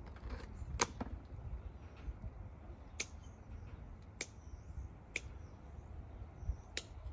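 Pruning shears snipping through succulent stems: five sharp snips, irregularly spaced one to two seconds apart, over a low rumble of handling.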